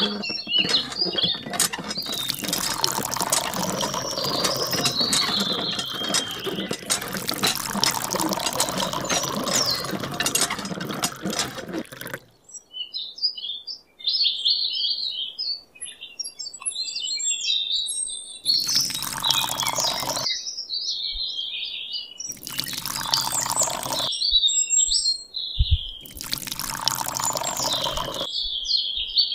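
Water pouring and splashing, a steady stream for about the first twelve seconds, then three short pours of a second or two each, with birds chirping throughout.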